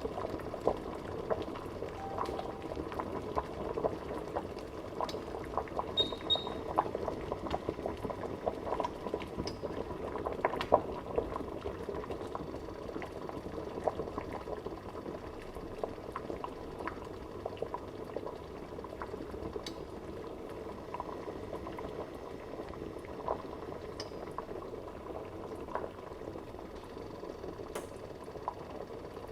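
Water boiling in a pan, bubbling and gurgling steadily with many small pops.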